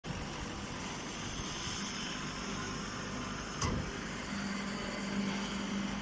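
Hydraulic straw press baler running: a steady machine hum from its motor and hydraulic pump, the hum growing stronger about four seconds in, with a single knock about three and a half seconds in.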